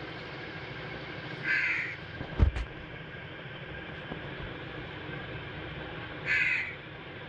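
Two short, harsh animal calls about five seconds apart, with a sharp knock shortly after the first.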